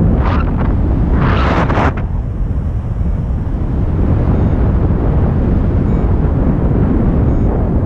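Wind from the flight buffeting the selfie-stick camera's microphone, a loud, steady low rumble, with two brief hissing gusts in the first two seconds.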